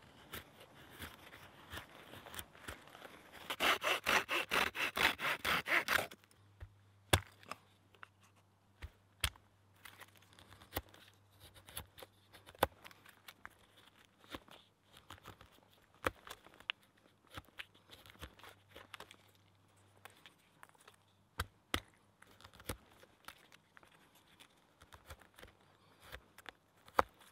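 Knife whittling wood: a scraping of the blade shaving a stick, with a quick run of about ten rapid strokes, roughly four a second, a few seconds in. After that come sparse sharp clicks as the knife cuts small pieces of wood against a stump.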